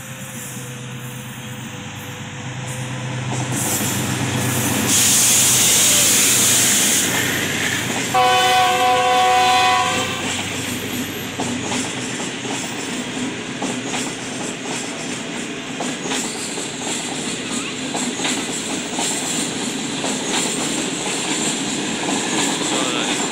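Green Line Express passenger train, hauled by a Pakistan Railways diesel locomotive, passing close. The locomotive's engine builds up and rushes by, and about eight seconds in its horn sounds one chord for about two seconds. Then the coaches run past with a steady rumble and clickety-clack of wheels on the rails.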